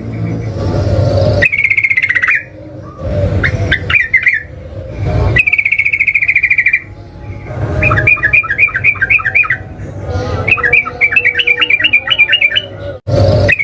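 Sooty-headed bulbul (trucukan) singing: short bubbly phrases with brief gaps, then, about 8 seconds in, two long runs of fast repeated notes, about eight a second, the rolling 'ngeropel' song that keepers prize. A low rumble sits underneath at times.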